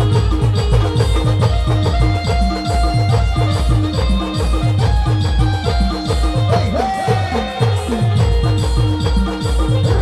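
Timli dance music played by an Adivasi band: a fast, steady, heavy drum beat under a repeating pitched melody.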